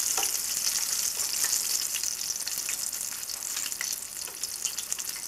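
Flour-and-egg-coated chicken slices frying in hot canola oil in a frying pan: a steady sizzle with dense fine crackling as the chicken finishes cooking.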